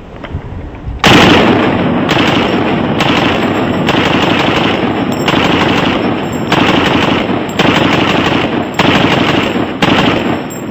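G36K 5.56 mm carbine fired on full auto in a run of back-to-back bursts, each about a second long, starting suddenly about a second in and stopping just before the end.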